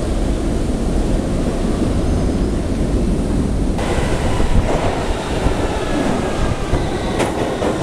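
Loud steady rumble of a London Underground train in the tunnels. About four seconds in it turns brighter and rattlier, with faint metallic wheel squeal near the end, as a train comes in to the platform.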